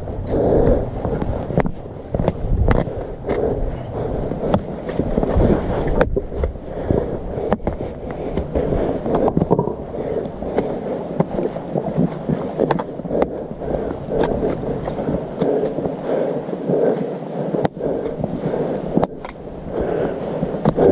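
Footsteps on a rocky trail covered in dry leaves, with rustling and handling noise on the microphone and a few sharp clicks.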